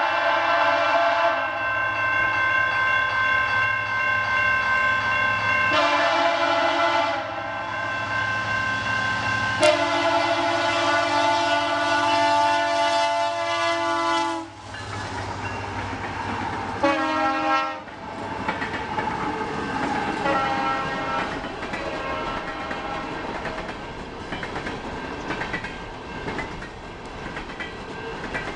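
Freight train locomotive's multi-tone air horn blowing several blasts, the longest about five seconds, a short one near the middle, over the steady low rumble of the engine. After that the horn stops and the rolling train cars clatter past on the rails.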